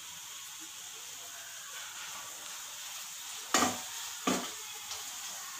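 Chopped vegetables sizzling in a kadai as a metal spatula stirs them, with two sharp strokes of the spatula against the pan about three and a half and four seconds in.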